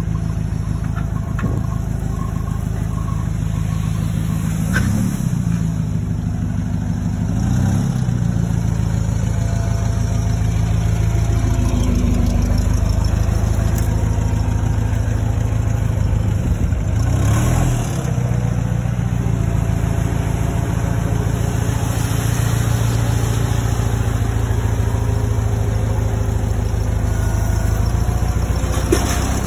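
Hyster forklift's engine running steadily while the truck travels, with brief revs about five, seven and a half and seventeen seconds in.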